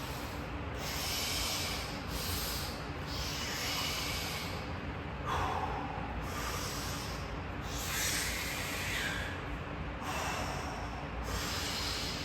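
A person breathing hard through the mouth: a run of hissing breaths in and out, about one a second.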